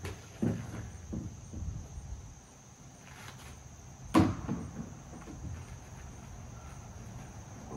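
Knocks and bumps from a kayak and its paddle being handled and set down on the bank: a sharp knock about half a second in, a few lighter ones after it, and the loudest knock about four seconds in. A faint steady insect buzz runs underneath.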